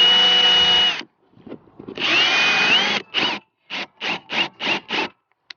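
Power drill spinning a step bit (uni bit) into the truck's metal: a long run of motor whine that stops about a second in, a second long run, then about six short trigger bursts in quick succession, the pitch dipping and rising as the bit loads and frees.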